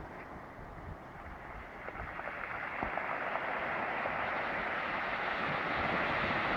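Atlantic surf washing onto a pebble beach: a steady rush of water that grows slowly louder, with a few faint clicks of stones about two to three seconds in.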